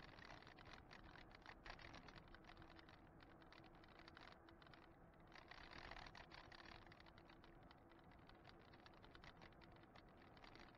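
Faint, rapid rattling and ticking over low road noise: an e-bike riding on asphalt, heard through a bike-mounted camera that vibrates on its mount. A faint steady hum runs through the middle of it.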